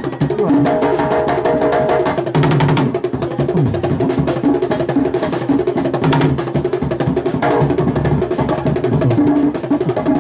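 Aloukou dance music played by a band, with dense hand drums and percussion knocking out a steady, driving rhythm over pitched bass and mid-range instruments.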